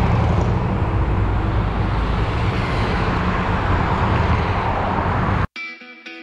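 City traffic noise of cars and buses driving past on a busy avenue, a steady loud rumble. It cuts off suddenly near the end, and guitar music starts.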